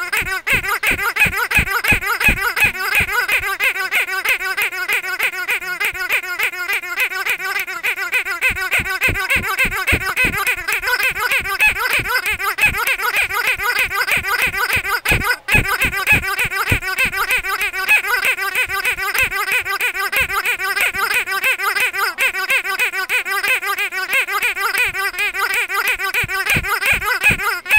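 A pink squeaky dog toy squeezed over and over by hand, giving quick squeaks several times a second, with a brief break about halfway through.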